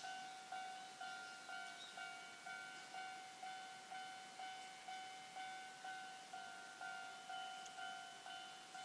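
Japanese railway level-crossing alarm ringing, a single electronic bell tone struck evenly a little over twice a second, each strike fading before the next. The alarm is the sign that the crossing is closed for an approaching train.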